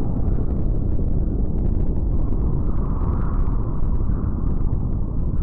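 Low, steady rumble of a nuclear explosion sound effect, its weight deep in the bass with no distinct blasts or pitch.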